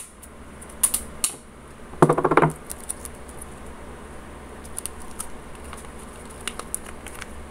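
Brown packing tape being pulled and pressed around a folded paper strip: scattered light clicks and crinkles, with one brief squeal about two seconds in.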